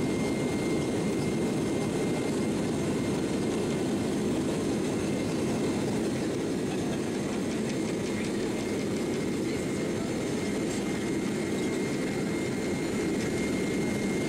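Steady cabin noise inside a Boeing 767-300ER as it taxis, its turbofan engines running: a low, even rumble with a faint steady high whine over it.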